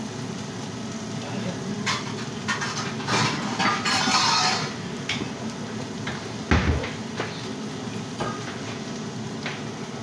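Kitchen clatter: dishes and utensils clinking and knocking, with a heavier low thump about six and a half seconds in, over a steady low hum.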